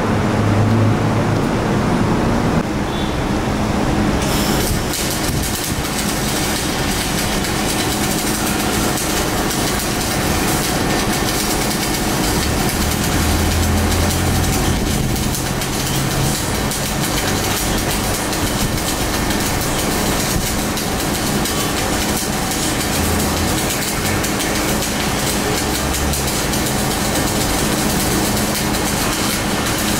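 MIG welding arc crackling steadily, starting about four seconds in, over a low machine hum.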